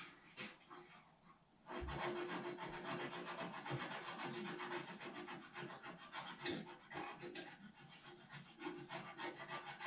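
Sandpaper rubbing on a model part in quick back-and-forth strokes, starting about two seconds in and running on steadily.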